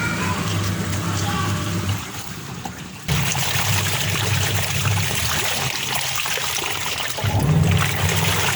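LG washing machine running on test, water trickling and splashing as it drains over a steady low motor hum. The sound drops away about two seconds in and comes back suddenly about a second later.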